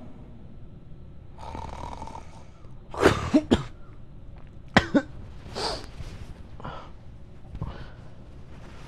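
A person coughing in fits: a quick run of about three coughs around three seconds in, two more near five seconds, then a few weaker ones.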